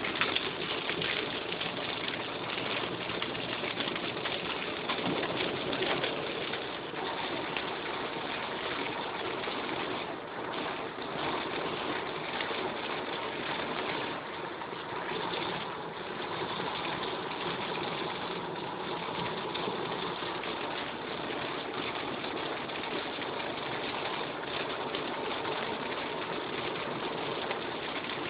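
Heavy rain hitting a moving car's roof and windscreen, mixed with tyre hiss on the wet road, heard from inside the cabin as a steady rush of noise.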